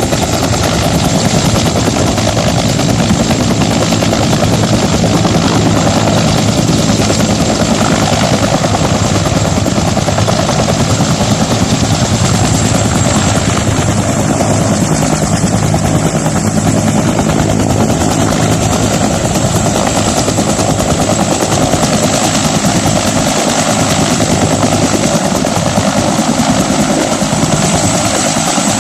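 Water-bombing helicopter's rotor and engine running steadily, with no break in the sound.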